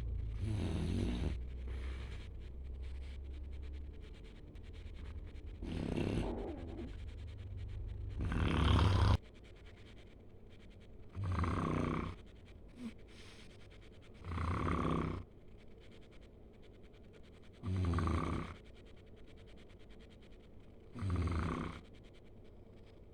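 Snoring: a series of snores, each under a second long, coming regularly about every three seconds. A low steady hum underneath stops suddenly about nine seconds in.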